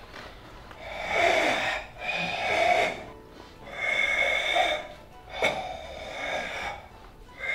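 Karateka doing ibuki breathing in the Kyokushin Tensho kata: forceful breaths pushed out through the throat, about four, each lasting about a second, with short gaps between. A single sharp click comes about halfway through.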